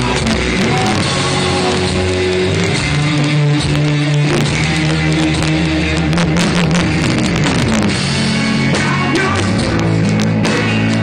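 Rock band playing live, with electric guitar and drum kit, heard loud and steady from within the crowd.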